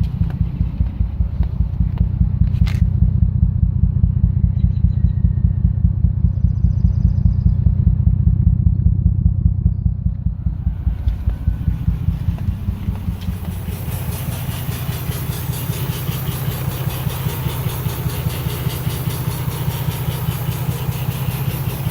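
Lexus IS300's 2JZ-GE straight-six idling with an evenly pulsing exhaust note. The owner hears this as a weird noise from the intake and exhaust that began after he washed the engine bay. There is a single click about three seconds in, and a steady hiss joins about thirteen seconds in.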